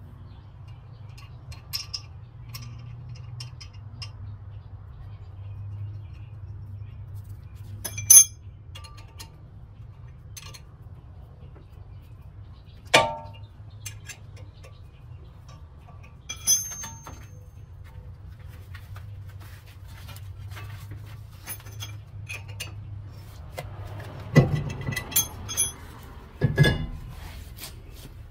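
Scattered metallic clinks and knocks of hand tools and brake parts being handled while a front brake rotor is removed, over a low steady hum. A few sharper clanks with a short ring stand out, with a quick cluster of them near the end.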